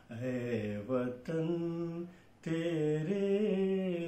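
A man singing a Hindi patriotic song unaccompanied, in long held notes with a short break about halfway.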